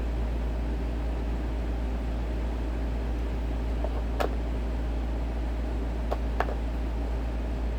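Steady low hum and hiss of background noise, with three small sharp clicks about four, six and six and a half seconds in from handling the scanner radio and its loose telescopic antenna.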